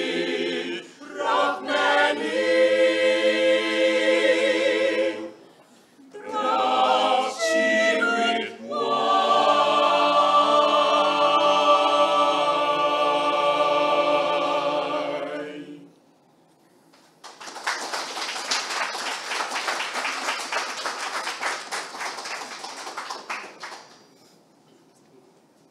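Mixed-voice choir singing a cappella, closing on a long held chord that cuts off about two-thirds of the way through. After a second of silence, audience applause follows for several seconds and dies away.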